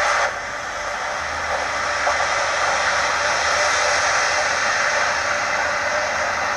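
Steady, loud hiss with no distinct events; it drops a little in level a moment in, then holds even.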